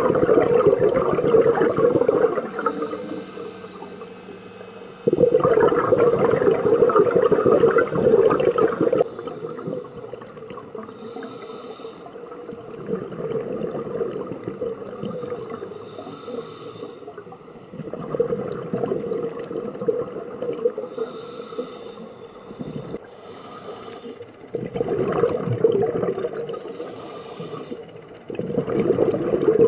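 Scuba diver breathing through a regulator, heard underwater through the camera housing: about five loud bursts of exhaled bubbles, each a few seconds long, with quieter stretches of inhaling between.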